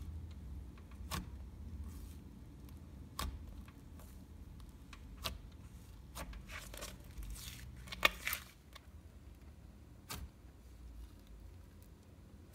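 Butter slime being stretched and pressed by hand, giving off scattered sharp clicks and pops every second or two, loudest as a quick pair near the two-thirds mark.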